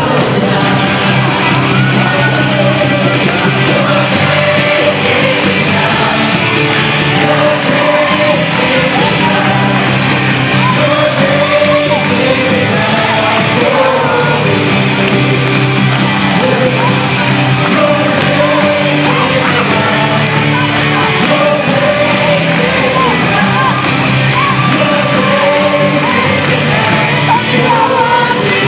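Live acoustic worship band playing: acoustic guitars strumming steadily under lead and backing voices singing together.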